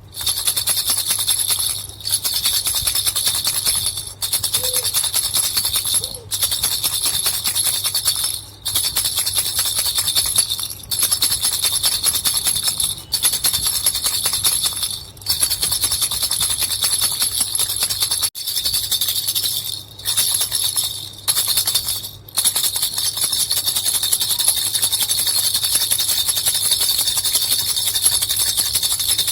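Baby bell rattle shaken steadily, its small bells jingling in a dense shimmer. Short breaks come about every two seconds, then the shaking runs on without a break for the last seven seconds or so.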